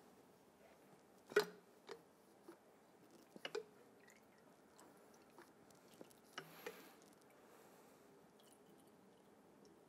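Quiet workshop with several light, irregular clicks and taps, the loudest about a second and a half in, as a Marzocchi MX Comp suspension fork leg is handled and the last of its oil is drained into a glass, with faint drips.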